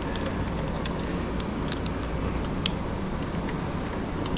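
Small metallic clicks and ticks from an Allen key working the mounting bolts of a motorcycle luggage rack, a handful scattered over a few seconds, over a steady low background rumble.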